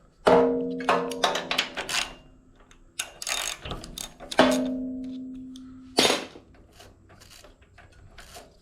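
Steel hand tools clanking and clinking against each other, about seven sharp strikes. Two of them ring with a clear tone that fades over a second or two. The sound fits a search through sockets for the spark plug socket.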